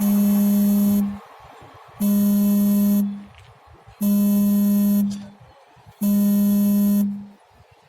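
Locomotive horn sounding in four even blasts, each about a second long on one steady pitch, starting every two seconds.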